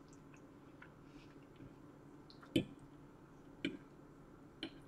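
Quiet eating of pasta with a fork from a plate, marked by three short clicks about a second apart, the first the loudest.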